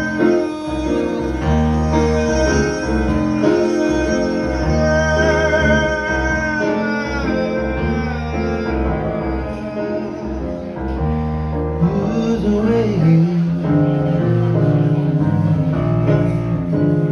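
Live blues music: a lead line with wavering, sliding pitch over keyboard bass and chords.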